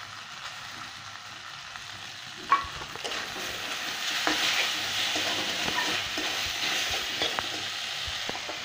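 Boiled noodles sizzling in hot oil in a metal karahi as they are stirred. The sizzle grows louder after about two and a half seconds, starting with one sharp clank against the pan, followed by scattered light scraping taps of the spatula.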